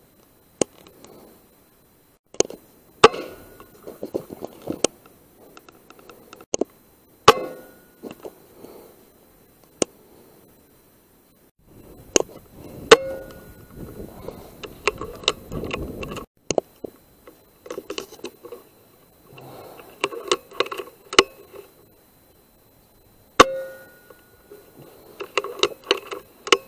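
.177 air rifle shots: a dozen or so sharp cracks spread out with gaps between them, several with a short metallic ring after them. Quieter clicking and rustling fills some of the gaps.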